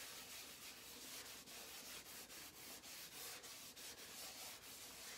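Wax-laden cloth rubbed back and forth over a painted wooden sign board, a faint steady scrubbing in repeated strokes. The board is being waxed so the chalk transfer will release easily.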